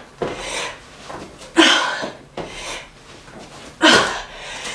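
A woman breathing hard from the exertion of burpees: about four forceful breaths, each starting suddenly and trailing off.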